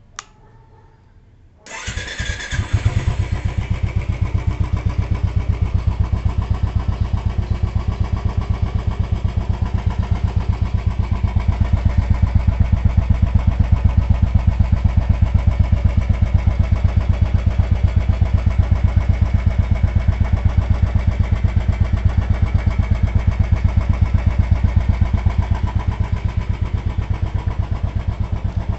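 Royal Enfield Classic 350's single-cylinder air-cooled engine starting about two seconds in, catching almost at once. It settles into a steady idle with an even, rapid thump from the exhaust.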